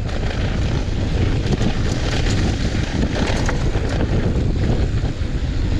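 Wind buffeting the microphone of a mountain biker's point-of-view camera at speed on dusty singletrack, with the rush of tyres over loose dirt and scattered clicks and rattles from the bike.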